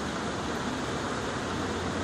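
Steady, even background hiss with a low hum underneath and no distinct events, the kind of noise a running fan or air conditioner makes.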